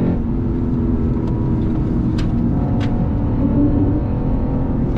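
The 2021 Lexus RC F Fuji Speedway Edition's 5.0-litre naturally aspirated V8 running under way on a race track, with a steady engine note and tyre and road noise, heard from inside the cabin.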